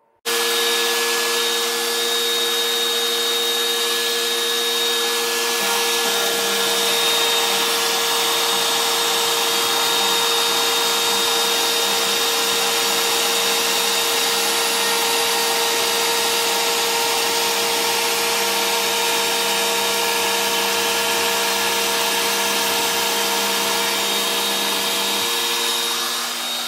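One-horsepower router on a CNC machine switching on sharply and running steadily at high speed as its bit cuts a 3 mm deep groove in PVC lumber. Its tone shifts about six seconds in and shifts back near the end.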